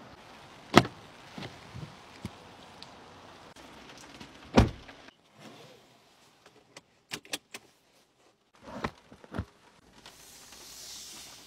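Heavy car-door thuds on a Mercedes GLE 450 coupé, one about a second in and a louder one at about four and a half seconds, followed by a few small clicks inside the cabin.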